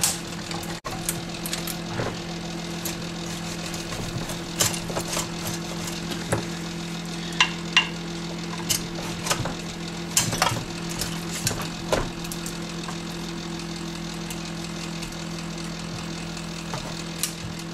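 Wire cutters snipping and wires rattling as wiring is cleared out of a CRT monitor's chassis: scattered sharp clicks and snaps, two of them close together in the middle. A steady hum runs underneath.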